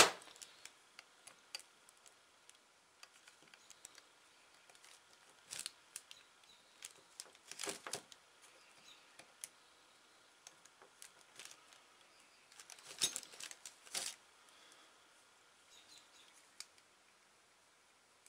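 Faint, scattered rustles and small clicks of hands fitting new 34 mm piston rings onto the piston of a Stihl SH86C blower's two-stroke engine, with a few louder handling sounds about six, eight and thirteen seconds in.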